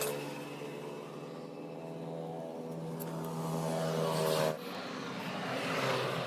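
Rebuilt Honda CD 70 single-cylinder four-stroke engine running, its revs shifting a few times: a sudden drop about four and a half seconds in, then climbing again near the end.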